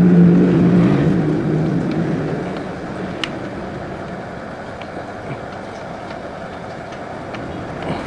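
A motor vehicle's engine hum, loud at first and fading away over about two seconds, then steady background noise with a few faint clicks.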